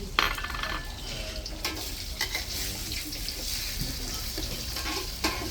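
Food frying in hot oil in a pan, a steady sizzle, with a few sharp knocks as it is stirred: the first stage of cooking Pad Thai, tofu going into the oil.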